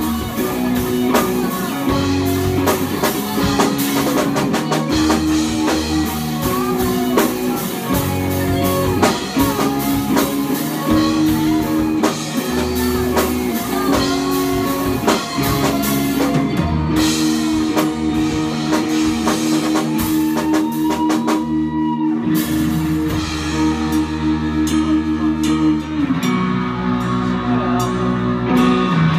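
Rock band playing an instrumental passage: two electric guitars with held, distorted chords and a drum kit keeping a steady beat.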